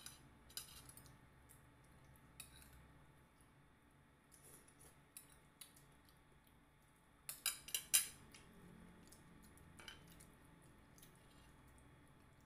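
Quiet eating sounds: scattered sharp clicks and clinks of a spoon against a ceramic plate and fingers picking at saucy fried fish, with a quick run of louder clicks about seven seconds in.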